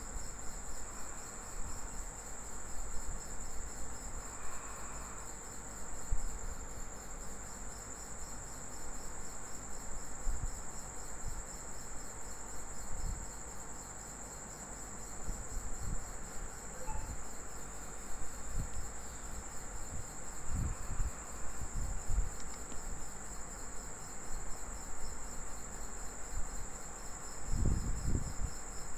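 Steady high-pitched insect chirring with a fast even pulse, with a few soft low thumps now and then, the loudest near the end.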